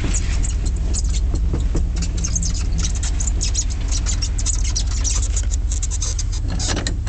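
1989 Chevrolet K2500's 5.7-litre small-block V8 running steadily under load as the truck climbs a steep hill, a constant low drone with a dense crackle of short clicks over it.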